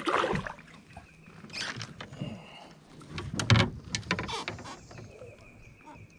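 Handling noises in a small fishing boat as a sunfish is swung aboard and held: irregular rustles and knocks against the boat, the loudest knock about three and a half seconds in.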